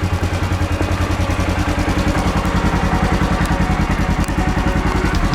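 A small vehicle engine running steadily close by, with an even, rapid pulsing.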